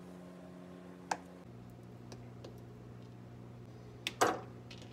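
Kitchen knife clicking against a plastic cutting board as it slices through hard-boiled eggs. There is one sharp click about a second in, a couple of light taps, and a louder double knock near the end, over a steady low hum.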